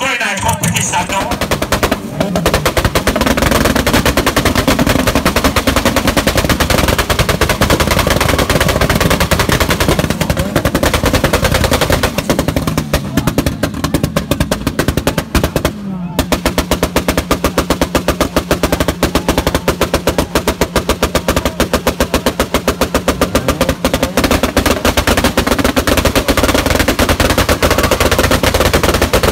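Car engine held hard against its rev limiter, the exhaust crackling in a loud, rapid, even stutter, with the revs dropping and climbing again a few times.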